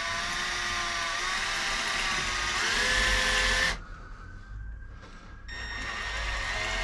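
Electric drill running while boring a hole in a bicycle frame, its whine rising slightly in pitch, then stopping abruptly about two-thirds of the way through and spinning back up near the end.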